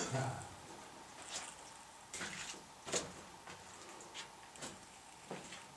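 Faint, irregular clicks and scuffs, about seven of them spread unevenly, from someone moving about and handling gear.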